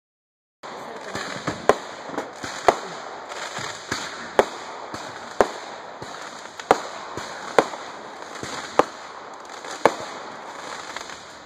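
Fireworks going off: a string of sharp bangs roughly one a second, with smaller pops between them over steady background noise, starting about half a second in.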